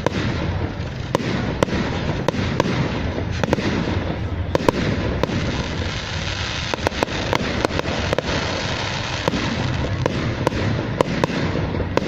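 Fireworks going off in a dense barrage: a continuous crackling noise with many sharp cracks and bangs at irregular intervals, several in quick succession about seven seconds in.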